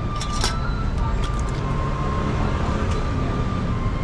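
Street traffic rumbling steadily, with a few sharp clicks or taps near the start.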